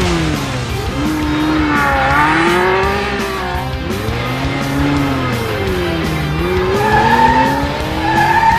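Racing-car engine sound over background music, its pitch rising and falling again and again like cars accelerating and braking through bends. Squeals come in near the end.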